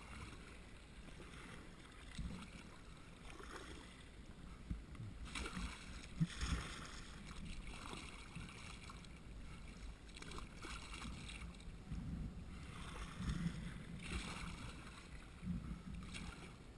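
Kayak paddle blades dipping and splashing in calm water, a string of irregular strokes, with the hull gliding along between them.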